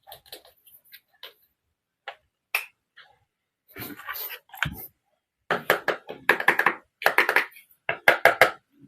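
Small pieces of a toy mini cooking set being handled: scattered light taps and clicks, then a dense run of clattering and rustling over the last few seconds.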